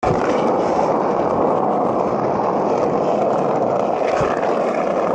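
Skateboard wheels rolling fast over rough asphalt: a loud, steady rumble.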